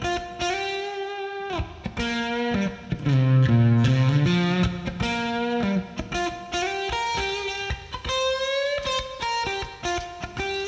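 Background music: a guitar playing a melody, with some notes bent up or down.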